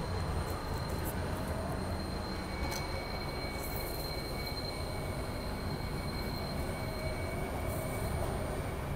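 A SEPTA Broad Street Line subway car standing at the platform: a steady low rumble with its equipment's thin high whine. A second, lower whine comes in about two and a half seconds in.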